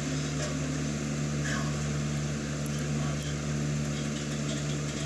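Steady low mechanical hum, like a running appliance or fan, with a few faint clicks.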